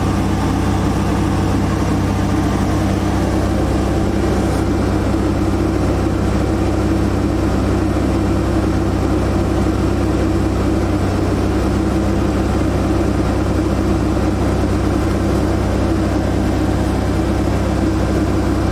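Mercedes OM642 3.0-litre V6 diesel engine running steadily at a raised speed of just under 2,000 rpm, held there for a forced diesel particulate filter regeneration.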